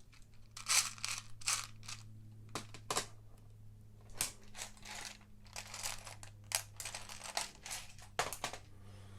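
Plastic crinkling and rustling in a series of short, irregular bursts as a bag of Lego pieces is handled, over a faint steady low hum.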